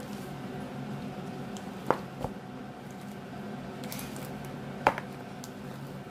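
Clear slime being squished and kneaded by hand, with three sharp clicks, two close together about two seconds in and a louder one near five seconds, over a steady low hum.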